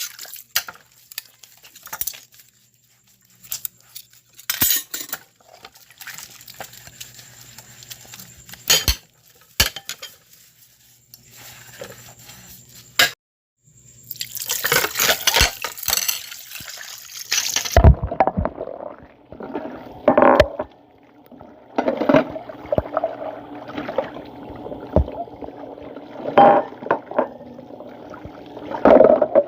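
Glass clinking and liquid pouring, with sharp clicks over a faint hum. Partway through, a different sound takes over: irregular knocks over low steady tones.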